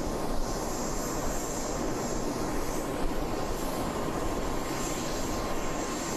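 Aircraft engine running: a steady rush of noise with a faint, steady high whine.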